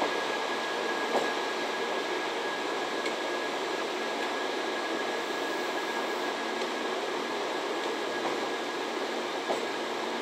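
923 series Doctor Yellow Shinkansen inspection train rolling slowly past: a steady rolling noise with a thin, steady high tone, and a couple of faint clicks.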